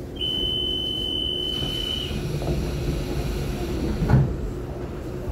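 Taiwan Railway EMU900 electric commuter train moving along the platform, with a steady running hum. A high thin tone holds for about two seconds near the start, and a brief louder sound comes about four seconds in.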